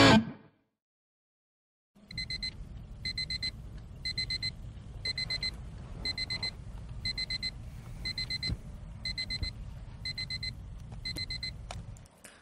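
Digital LCD alarm clock beeping: short clusters of about four quick electronic beeps, repeating about once a second. It starts about two seconds in and stops shortly before the end.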